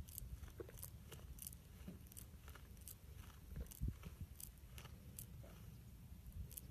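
Goat chewing, a faint steady run of soft crunching clicks about two a second.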